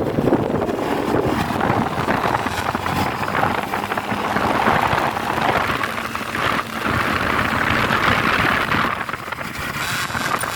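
Steady rush of wind and road noise from a moving motorcycle, heard through a rider's microphone, with no clear engine note standing out.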